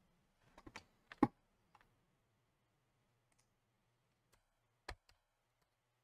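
A handful of sharp single clicks from computer controls at a desk, with the loudest about a second in and another strong one just before five seconds.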